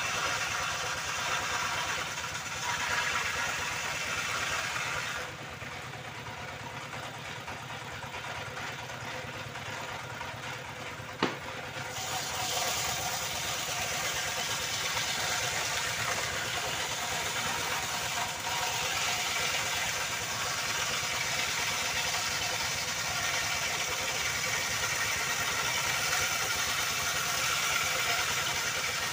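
Motor-driven circular wood saw running steadily, with a dense hiss and a steady whine. For several seconds in the middle the high end drops away, then it comes back, and a single sharp click sounds about eleven seconds in.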